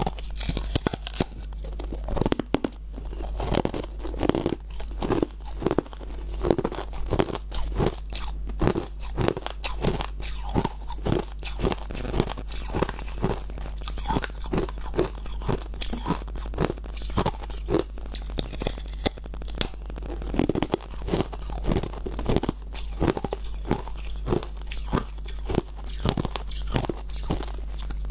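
Crunching ice: a block of frozen coloured ice being bitten and chewed, a dense run of irregular sharp crunches, over a low steady hum.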